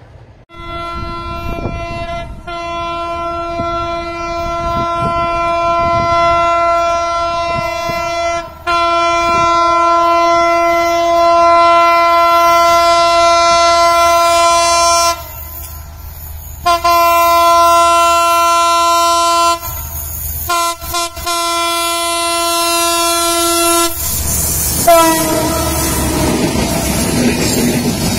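Locomotive air horn of a Bangladesh Railway intercity train sounding in four long blasts with short breaks, the first two the longest, as the train approaches. In the last few seconds the horn's pitch drops as the locomotive goes past, and the rumble and clatter of the passing coaches takes over.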